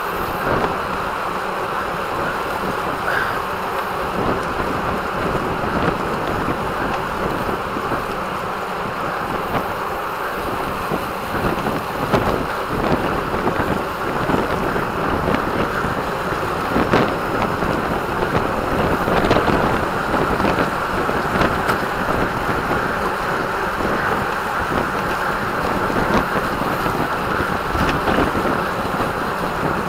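Steady wind rushing over the microphone of a camera on a road bike at race speed, mixed with the rolling noise of the bike beneath.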